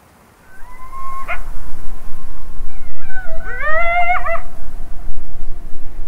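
Coyote calls: a rising howl held briefly about a second in, then a quick tangle of warbling yips and howls about three seconds in, over a steady low rumble.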